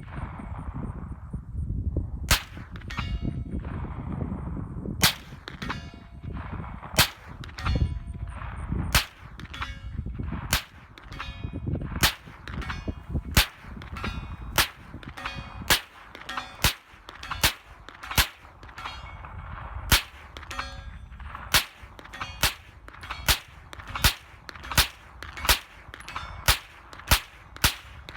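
Thureon Defense 9mm carbine firing a long string of semi-automatic shots, each hit answered by the clang of a steel target. The shots come one to two seconds apart at first and quicken to more than one a second in the second half.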